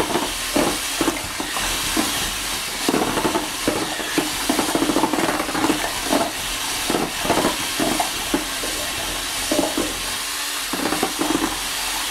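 Cordless drill spinning a mixing paddle through watered-down joint compound in a plastic bucket: a steady whir and wet churning with frequent irregular knocks. The compound is being mixed to a thin, pancake-batter consistency for rolling onto a ceiling.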